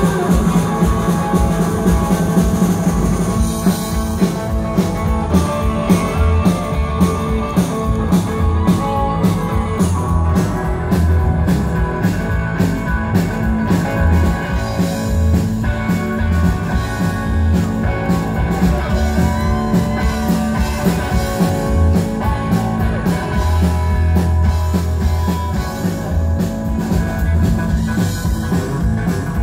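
Rockabilly band playing loud live music on electric guitar, upright bass and drum kit.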